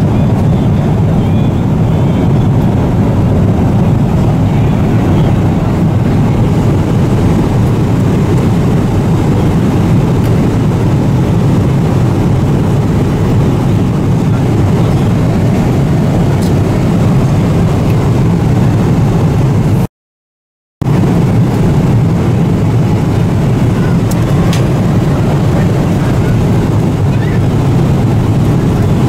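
Steady low rumble of a Boeing 777-300ER's cabin in cruise: engine and airflow noise heard from a passenger seat. The sound drops out completely for about a second, some twenty seconds in.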